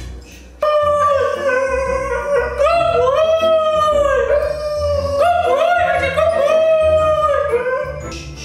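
Siberian husky vocalizing in a series of long, wavering, howl-like calls that rise and fall in pitch. It starts abruptly about half a second in and fades near the end, over background music.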